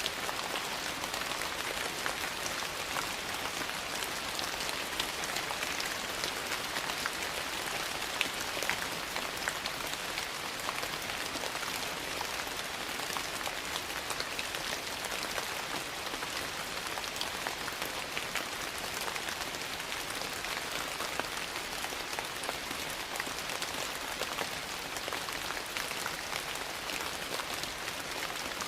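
Steady rain mixed with a crackling wood fire: an even hiss dotted with frequent small sharp pops and ticks.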